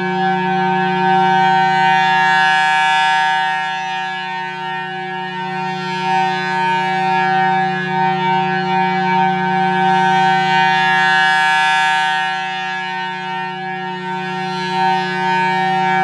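Federal Signal Thunderbolt 1000T siren with its blower wired in reverse, sounding a Full Alert steady tone at a constant pitch. The sound swells and fades twice as the horn rotates at 8 RPM, sweeping past about every seven and a half seconds.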